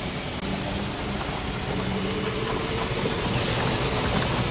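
Golf cart driving across gravel: a steady motor hum with road noise, slowly getting louder.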